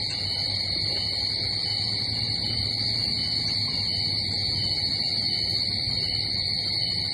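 A steady, shrill drone of insects over a low, even rumble.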